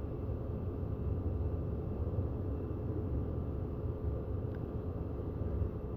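Steady low background rumble with a faint steady hum, and one faint click about four and a half seconds in.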